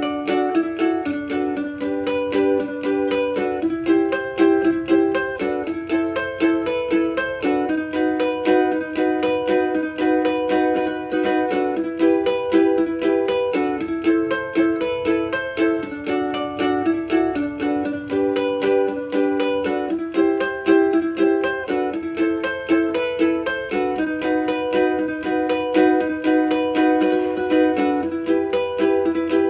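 Issaku ukulele newly fitted with Orphee strings being played: a steady, rhythmic run of plucked chords and notes, testing how the new strings sound.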